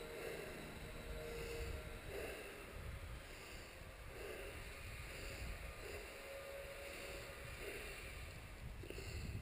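Ski-Doo Alpine II snowmobile's two-stroke engine running, heard faintly as a low rumble with a tone that swells and fades.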